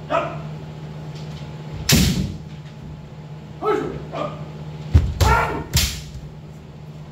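Kendo sparring: several short, sharp kiai shouts from players in armour, and three loud cracks of bamboo shinai strikes, one about two seconds in and two close together around five to six seconds in.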